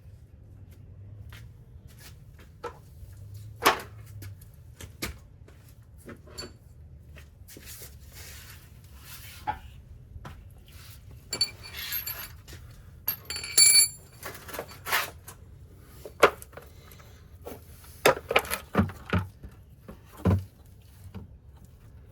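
Metal hand tools clinking and knocking in irregular, scattered clicks. About two-thirds of the way through comes a brief cluster of bright, ringing metallic clinks, the loudest moment.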